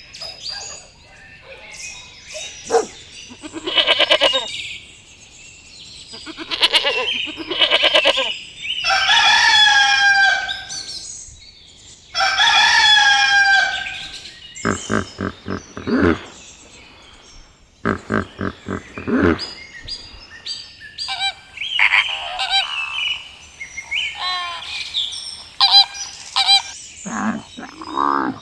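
Domestic farm birds calling, geese among them: a busy string of honks and squawks, with two long drawn-out calls about ten and thirteen seconds in.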